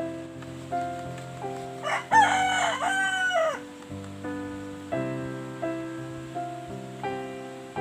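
A rooster crows once, about two seconds in, a single call of about a second and a half that rises, holds and falls away at the end. Gentle piano music plays underneath.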